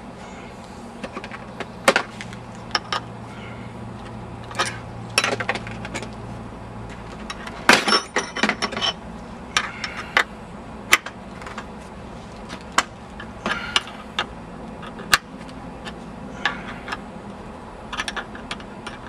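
Irregular metallic clicks and clinks of hands unscrewing a brass hose-barb fitting from the golf-ball cannon's valve and handling its metal parts.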